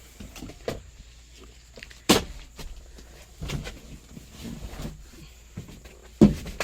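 Scattered clicks and knocks of hands working around the vehicle, with two louder knocks about two seconds in and near the end. No engine is cranking or running.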